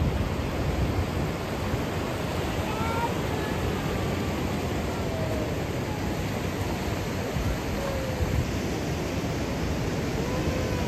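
Sea surf breaking and washing up a sandy beach: a steady, unbroken rush.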